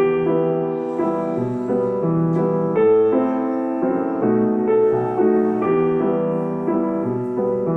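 Piano played in a dance-like accompaniment: a bass note and chords struck on a steady beat, held by the sustain pedal, which goes down with each bass note and comes up with the changes in rhythm.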